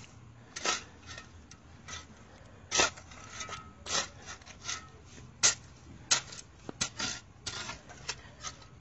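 A metal spade scraping and pushing loose soil back into a hole at the base of an apple tree, covering freshly poured chicken manure. It makes a series of short, irregular scrapes, the loudest a little under three seconds in.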